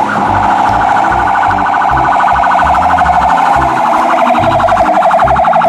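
Toy fire truck's electronic siren sounding as a fast, steady warble.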